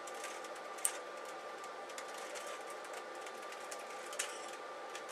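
Rubik's cube being twisted by hand: a few short plastic clicks, the sharpest about a second in and another near the end, over a steady hiss and a thin steady tone.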